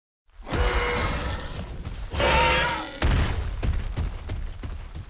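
Dinosaur roar sound effect in three surges. The loudest comes about two seconds in, and a last one starts sharply about three seconds in and fades away.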